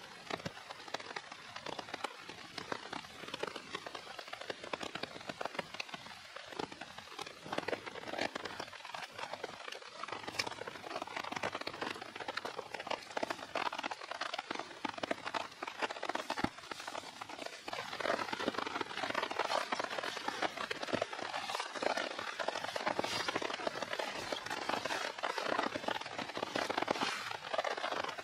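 Steady rain falling on the forest and a tarp shelter, a dense patter of many small drops that grows louder about two thirds of the way in.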